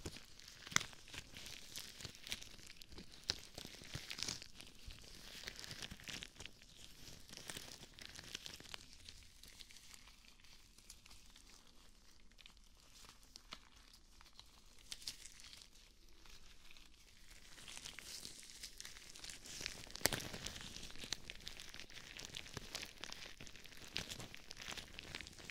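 Rubber gloves rubbing and crinkling close to a binaural microphone: gloved hands rubbing together and over the mic's silicone ears, a close crackly rustle with many sharp little snaps. It goes softer through the middle and picks up again about three-quarters of the way through.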